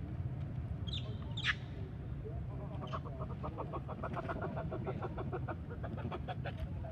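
An animal giving a rapid run of clucking calls, about five a second, starting about three seconds in and lasting a few seconds. Two short, high, falling squeaks come before it, and a steady low rumble runs underneath.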